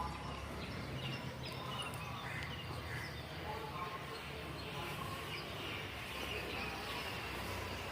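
Outdoor village ambience: birds chirping here and there over a steady background, with faint voices in the distance.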